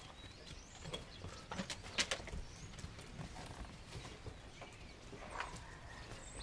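Faint scattered scuffs and clicks of Central Asian Shepherd puppies' paws moving over dirt and concrete, with a few faint bird chirps in the background.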